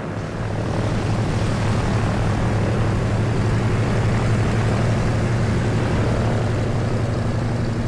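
Short Skyvan's twin turboprop engines running steadily on the ground, a loud propeller hum that swells about half a second in and then holds.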